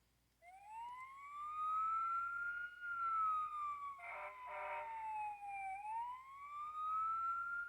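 Electronic fire engine siren from a children's sound book's speaker, wailing slowly up in pitch, down, and up again. A brief burst of another tone about four seconds in.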